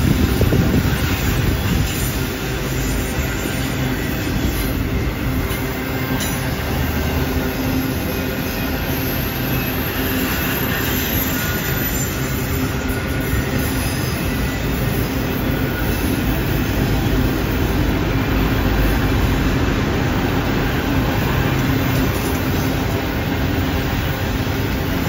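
Steady rumble of a freight train's loaded autorack cars rolling past on steel wheels, with a faint high wheel squeal from the curve for a few seconds in the middle.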